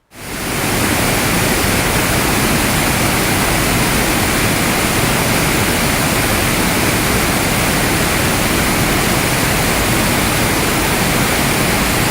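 Rushing water, a loud, steady roar like a waterfall or cascade, that fades in quickly right at the start and holds without change.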